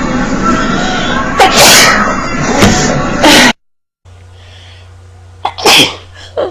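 A series of people's sneezes: two loud sneezes in the first half, then after a brief silence another sharp sneeze with a smaller one right after it.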